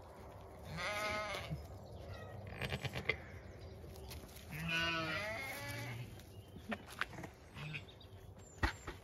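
Zwartbles sheep bleating twice: a short quavering bleat about a second in and a longer one about five seconds in.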